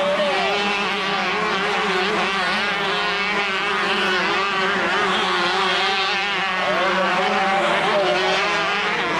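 Several two-stroke motocross bikes racing, their engines revving up and down and overlapping.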